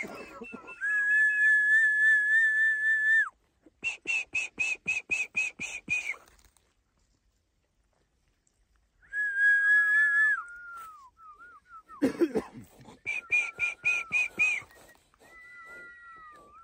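High whistled notes: a long held tone lasting a few seconds, then runs of quick repeated pips at about four a second, with short falling slurs between them and a pause of near silence midway.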